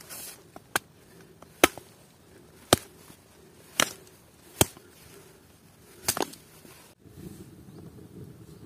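Wood being chopped: six sharp blows about a second apart, the sixth a quick double strike, then a low steady rumble from about seven seconds in.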